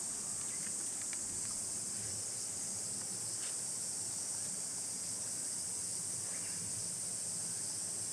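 Steady chorus of insects: a continuous high-pitched buzzing drone.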